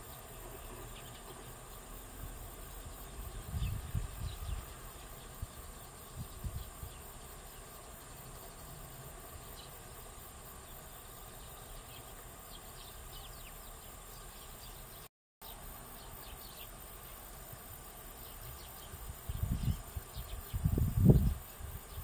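Steady outdoor field ambience with a drone of insects and faint, scattered short chirps. Low rumbles come and go, the strongest near the end. The sound drops out for an instant about two-thirds of the way through.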